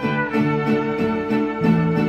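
Small mariachi ensemble playing: acoustic guitar strumming a steady rhythm under violin and trumpet carrying the melody.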